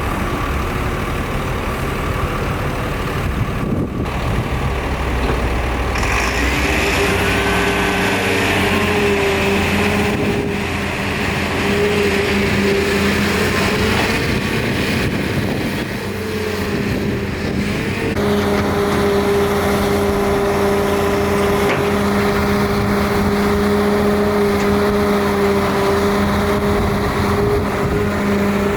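Heavy diesel machinery at work, a Doosan DX300LC-3 excavator with dump trucks: engines running steadily, their pitch shifting up and down, with a brief dip in level about sixteen seconds in.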